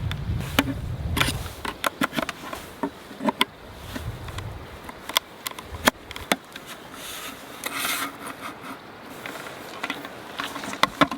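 Scattered clicks, knocks and light rubbing of small things being handled, with low wind rumble on the microphone near the start.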